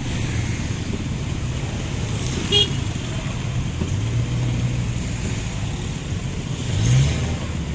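Stop-and-go traffic in the rain: a steady hum of idling car and motorcycle engines under an even hiss of rain, with a short, high horn toot about two and a half seconds in. Near the end a nearby engine revs up briefly.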